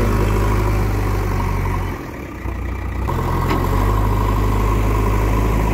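JCB backhoe loader's diesel engine running steadily while the front loader bucket pushes soil. The engine sound drops briefly about two seconds in, then comes back.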